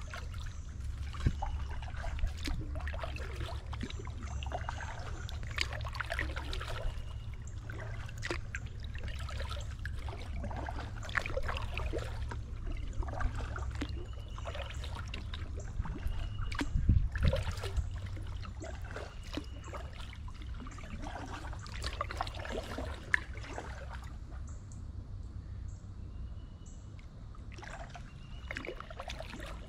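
Kayak paddle strokes in river water: irregular splashes and water trickling off the paddle, over a low steady rumble.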